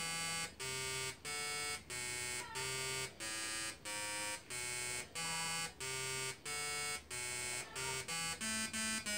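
Arduino-interrupted slayer exciter Tesla coil playing a tune: a series of short buzzy notes of changing pitch, a little under two a second, sounded by the discharge at the top of the coil, with the last note held longer.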